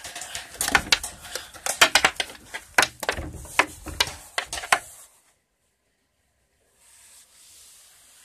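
Handling noise: a rapid run of clattering knocks and fabric rustling right at the phone's microphone for about five seconds, then it stops suddenly, leaving only a faint hiss near the end.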